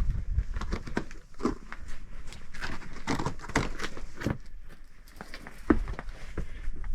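A hiker's footsteps, a run of irregular crunching and scuffing steps on the trail.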